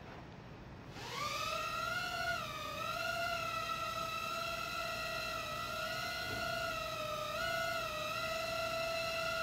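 Cheerson CX-10 mini quadcopter's four tiny coreless motors and propellers spinning up with a rising whine about a second in. The whine then holds steady, high-pitched and wavering slightly in pitch as the throttle shifts.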